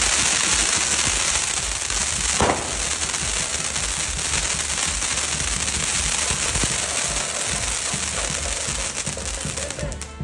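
Fireworks going off in a dense, continuous crackle of many small pops, with one sharper bang about two and a half seconds in; the crackle drops away near the end.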